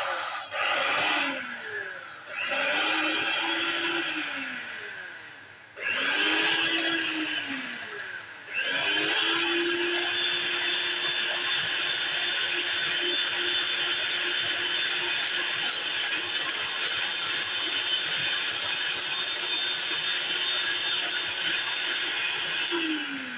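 Electric hand mixer beating raw eggs in a glass bowl. The motor makes three short runs, each rising then falling in pitch, then runs steadily for most of the rest and winds down near the end.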